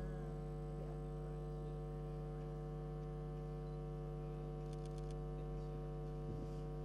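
Steady electrical mains hum with many overtones, carried through the sound system, unchanging throughout; a quick run of faint ticks about five seconds in.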